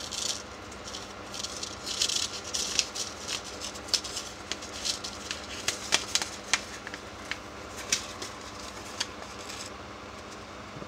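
Paper seed packet crinkling and rustling as it is torn and folded open by hand, in irregular bursts with sharp little crackles and ticks of the paper. The bursts die down shortly before the end.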